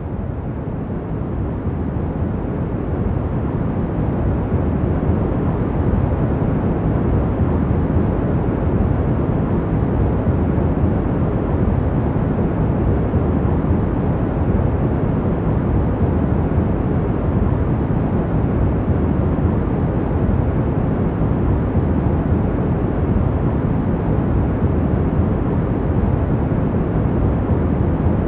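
Steady, even rumbling sleep noise, deep and low-pitched rather than hissy, with no changes or separate events. It swells up over the first few seconds, then holds level.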